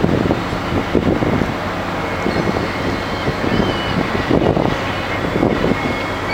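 A large ship's engine and machinery running with a steady low hum and a faint high whine as the hull moves past at close range, with several rumbling gusts of wind on the microphone.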